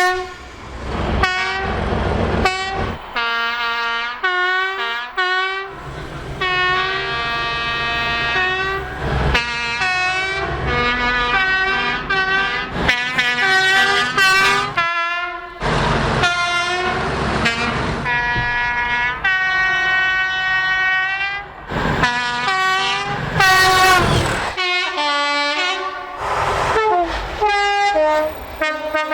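UK train horns sounding in a quick series of blasts, many stepping between a high and a low note, with the rumble of the trains underneath.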